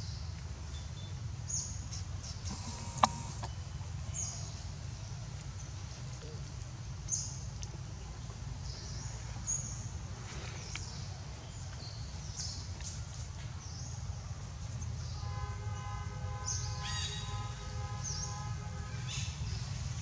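Outdoor ambience of small birds chirping over a steady low rumble, with one sharp click about three seconds in. In the last few seconds a louder call starts, repeated several times in quick succession, with a buzzy, pitched tone.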